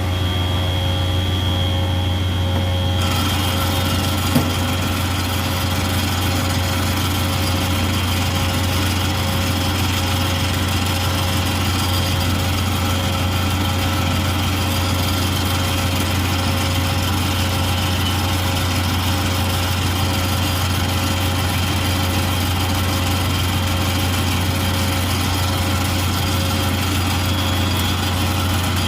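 Steady machine hum with a high whine as a rebuilt Lucas SI 140 24 V 100 A alternator is spun up for a charging test, holding an even speed; a single click about four seconds in.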